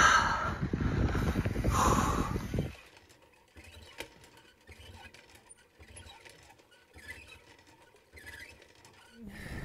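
Wind buffeting the microphone with hard breathing for the first three seconds or so, then it drops off sharply to a faint, regular clunking from a hand-operated well pump being worked by its handle.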